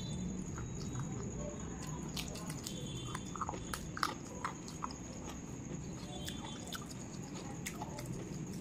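Close-up mouth sounds of chewing a handful of rice and chicken curry, with scattered small wet clicks. Fingers mix rice on a metal plate, and the sharpest click comes about four seconds in.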